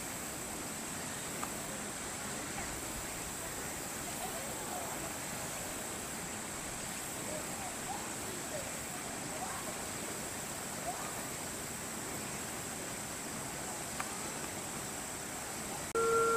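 Steady background hiss with a faint, continuous high whine and a few faint, short chirp-like calls scattered through it; right at the end a simple electronic tune begins.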